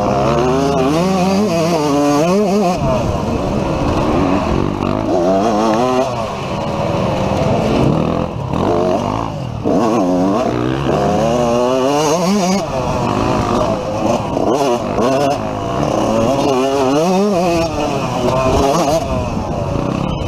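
Dirt bike engine running hard and revving up and down over and over as the rider works the throttle and shifts through the trail, heard from on board the bike.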